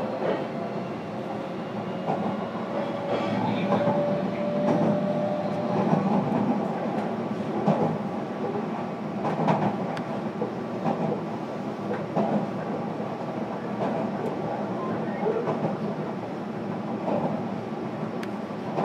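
Running sound inside a JR Kyushu 305 series electric train's motor car: the traction motor whine rises in pitch over the first several seconds as the train picks up speed. After that come steady wheel-on-rail running noise and rail-joint clacks every second or two.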